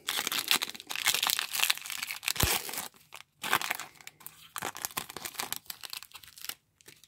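Foil wrapper of a Topps baseball card pack being torn open and crinkled by hand, with a brief pause about three seconds in.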